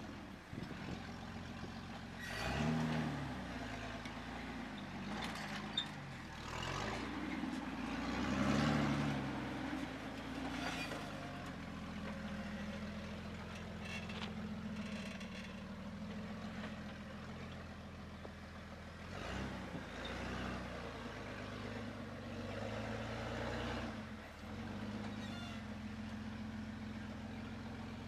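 2003 Jeep Wrangler TJ's engine running at low revs while rock crawling, with the revs rising briefly several times under throttle, most strongly around nine seconds in.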